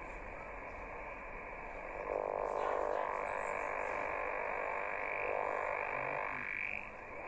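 Yaesu transceiver's speaker giving out 6-metre USB receive audio while the dial is tuned: a steady buzzing noise of man-made interference (QRM), cut off above the voice band by the SSB filter. It swells louder about two seconds in and drops back shortly before the end.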